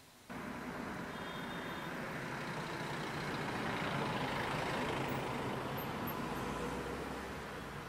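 A heavy motor vehicle's engine running with a low hum. It starts abruptly just after the start, grows louder to a peak about four to five seconds in, then eases off slightly.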